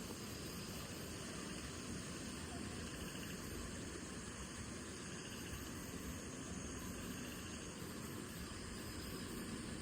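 Faint steady outdoor background noise, a low even hiss with faint high-pitched insect chirring.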